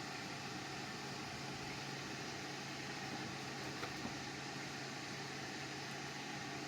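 Steady low hum and hiss, with a faint click about four seconds in.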